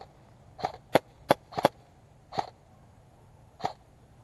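Airsoft guns firing single shots: about seven short, sharp cracks at irregular intervals, three of the sharpest in quick succession about a second in.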